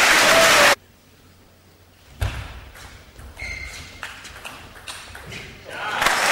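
Crowd applause in a large sports hall, cut off sharply less than a second in. Then quieter table tennis play follows: a low thud and light knocks of the ball on bat and table. Near the end the applause swells loud again.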